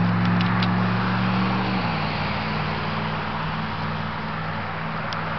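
Wind rushing over the microphone along with road traffic: a car passing on the road alongside, its low engine and tyre hum dropping in pitch about two seconds in.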